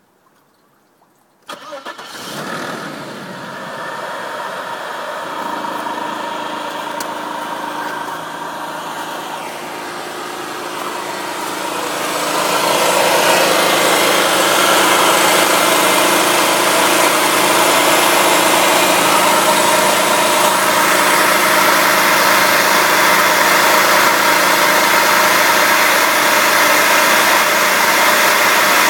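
Audi A6 C5 2.7 biturbo V6 (ARE) starting from cold about a second and a half in, then idling. About ten seconds later a loud, steady metal-to-metal noise joins over the idle and keeps going: the strange after-cold-start sound that comes randomly, always lasts the same time, and once sounded like a huge fan.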